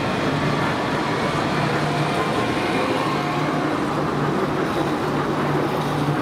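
Rubber-tyred tram guided by a single centre rail, passing slowly at close range: a steady electric hum over the sound of its tyres and the street.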